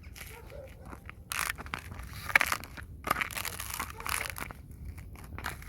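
Icy, crusted snow being scratched and tapped: irregular crunchy scraping strokes, some ending in sharp clicks, with short pauses between them.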